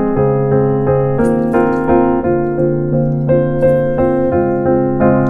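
Background piano music: an even run of notes, about two a second, over lower held notes.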